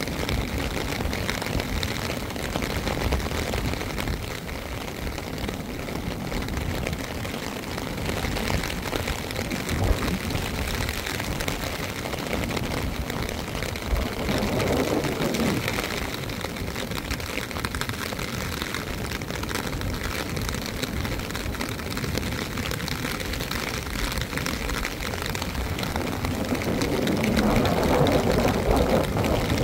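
Steady rain, with a rushing swell about halfway through and another, louder one near the end.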